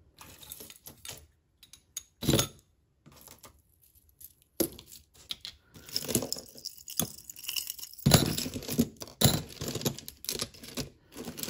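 Costume-jewelry bangles and beaded bracelets being handled and set down on a table: scattered knocks and clinks, busiest in the last few seconds, with some handling rustle between them.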